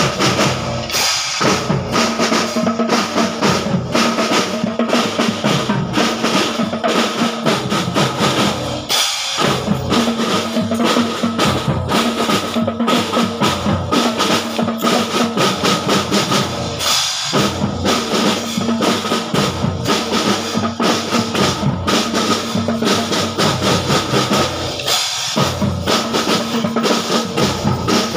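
A school marching drum band playing. Snare and bass drums beat a steady marching rhythm with held melodic notes above it, and the beat breaks briefly about every eight seconds.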